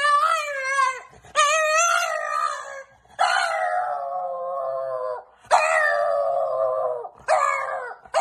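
Bulldog howling and whining to beg for food at the table: about five long, wavering cries, each a second or two long, with short breaks between them.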